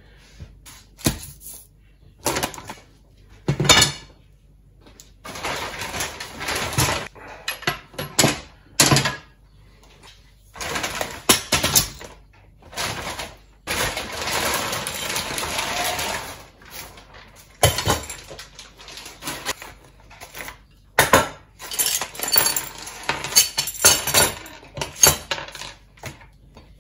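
A clear plastic bag rustling as it is pulled off, with the aluminium boom and elements knocking on a wooden worktop and metal U-bolts, nuts and a mounting bracket clinking as they are set down. The sound comes as separate knocks and clanks, between longer spells of rustling.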